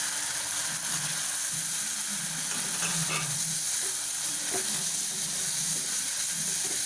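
Chopped tomatoes sizzling steadily in hot oil with onion and spice masala in a non-stick pan, stirred with a wooden spatula that scrapes and taps the pan now and then.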